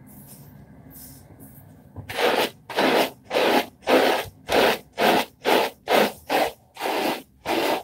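Hair brush scrubbing through short hair lathered with shampoo: repeated wet, swishing strokes about twice a second, starting about two seconds in.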